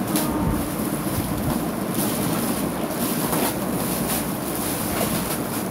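Shiny plastic gift bag crinkling and rustling as it is pulled open by hand, a noisy hiss with scattered sharper crackles.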